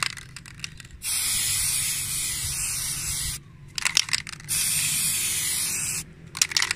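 Aerosol spray-paint can spraying paint onto a motorcycle drum-brake plate: two long hisses of about two seconds each, with short sputtering clicks before, between and after them.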